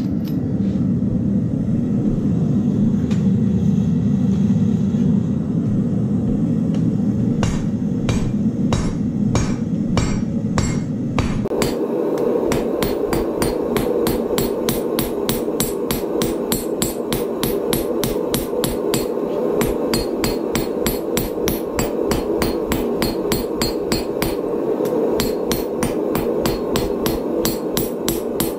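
Steady low rumble, then a hand hammer striking red-hot steel on a chain-wrapped anvil. The blows come spaced about two a second at first, then past a third of the way in they become a fast, steady rhythm that carries on to the end.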